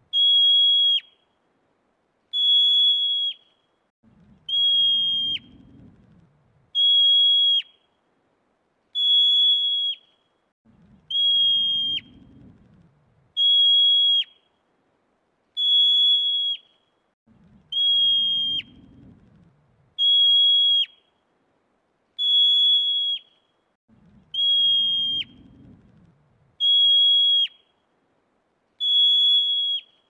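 Marmot alarm calls: a single high, clear whistle about a second long that drops sharply in pitch at its end, repeated steadily about every two seconds. A fainter low rumble comes in every six or seven seconds.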